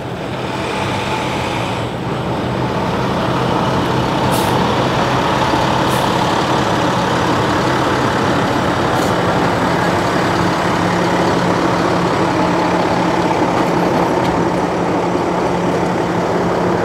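Utility bucket trucks' engines running steadily close by, with a low engine hum under a broad rumble of traffic noise. A few brief hisses cut in about four, six and nine seconds in.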